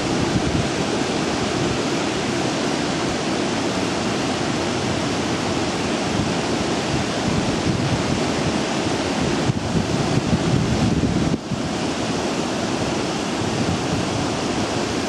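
Steady rushing wind noise buffeting the microphone outdoors, with a brief dip about three-quarters of the way through.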